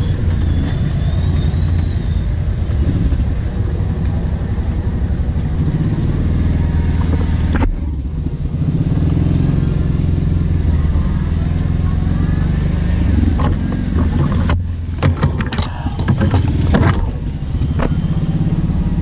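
Kawasaki KVF 750 Brute Force quad's V-twin engine running under throttle while riding a rutted mud track, easing off briefly about eight seconds in. Near the end, a cluster of knocks and rustles from the quad and branches.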